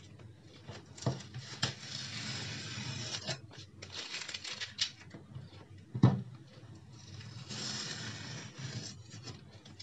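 Masking tape being peeled off the edges of watercolor paper: stretches of dry ripping and crackling, with a few sharp knocks and taps, the loudest about six seconds in.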